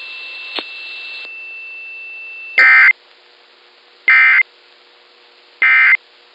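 Emergency Alert System end-of-message code: three identical short bursts of warbling digital data tones, each about a third of a second long and about a second and a half apart, marking the end of the alert. A faint steady high tone and a click come before the first burst.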